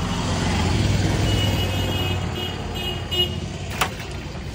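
A motor vehicle passing on the street, its low engine rumble swelling and then fading, with a few short high beeps in the middle. A single sharp click comes near the end.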